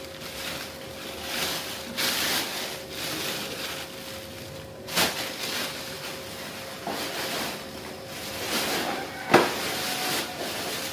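Plastic bag full of fresh chilies rustling and crinkling as it is handled and lifted, with two sharper crackles, one about halfway and a louder one near the end.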